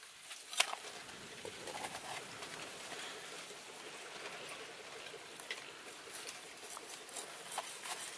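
Knife and cleaver cutting through grilled pork ribs on a leaf: a crisp crackling of the charred crust with scattered clicks from the blade. One sharp click comes about half a second in, and more clicks cluster near the end.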